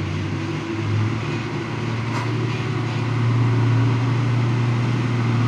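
Diesel engine of a heavily loaded tanker truck pulling slowly through mud, a steady low drone that gets louder about three seconds in as the truck comes closer.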